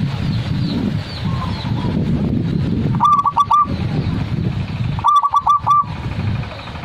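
Zebra dove (perkutut) cooing: two short phrases of four or five quick, clipped coos, about two seconds apart, over a steady low background rumble.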